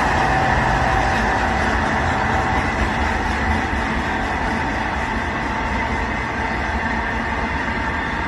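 Diesel-hauled freight train running past, a steady rumble of engine and wheels on the rails that eases slightly about a second in.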